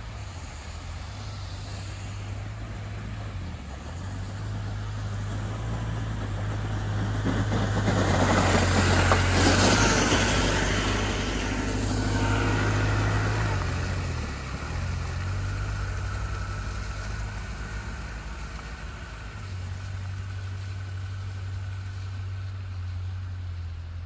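A bus approaching on a snowy road and passing close by, its tyre noise swelling to a peak about nine seconds in and then fading, over a steady low engine hum.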